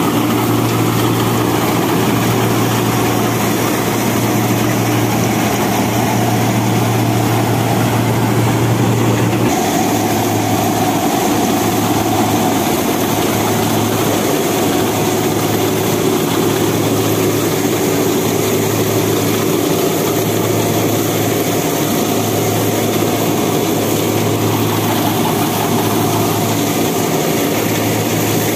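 Mahindra Arjun Novo 605 DI tractor engine, fitted with a turbo, running under load while driving a Vishavkarma-741 straw reaper, with the reaper's mechanism turning. A loud, steady engine drone that about a third of the way in dips slightly and begins to pulse regularly.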